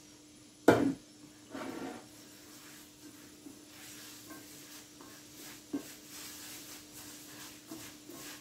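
A sharp knock about a second in, then from about four seconds a soft, gritty rustle of hands rubbing coarse semolina with smen and oil in a large bowl. A faint steady hum sits underneath.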